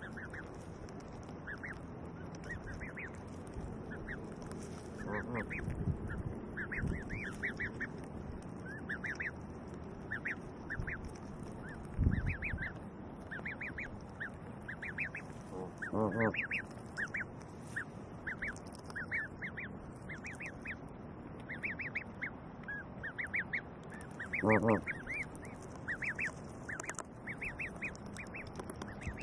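Canada goose goslings peeping in clusters of short rising chirps throughout, with an adult Canada goose giving a short honking call twice in the second half. A dull thump near the middle is the loudest sound.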